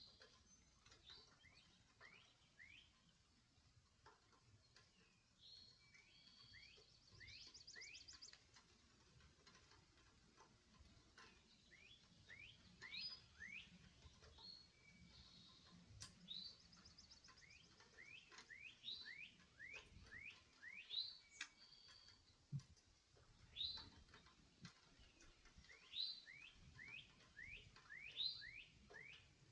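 Birds chirping faintly: quick runs of short rising chirps, repeated in bouts, with a brief buzzy trill a few seconds in.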